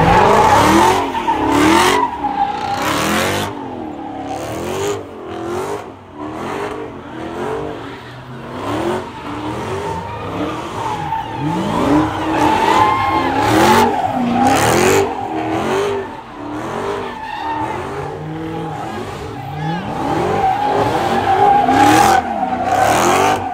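A car's engine revving up and down over and over, about once a second, while its tyres squeal in a steady high tone: a car spinning donuts or drifting.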